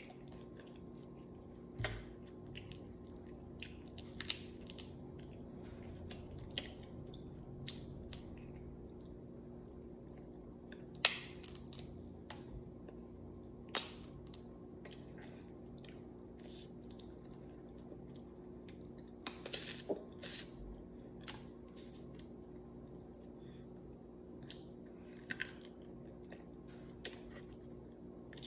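Close-up eating sounds of seafood: chewing and mouth noises with scattered sharp cracks and clicks as crab-leg shells are picked apart by hand, a few louder clusters of cracking in the middle. A faint steady hum runs underneath.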